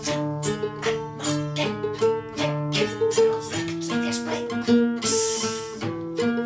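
Acoustic string band playing: strummed acoustic guitar and ukulele in a quick, steady strumming rhythm under a sustained bowed violin line. A brief hiss of noise comes in about five seconds in.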